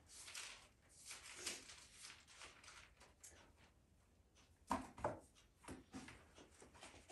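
Faint paper rustling and soft handling sounds from the pages of a book being turned, with a few sharper clicks about two-thirds of the way through.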